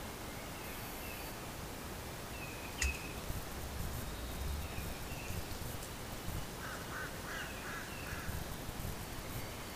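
Wild turkeys calling: a quick series of about five yelps a little under seven seconds in. Faint, short high chirps of small birds repeat throughout, and there is a single sharp click about three seconds in.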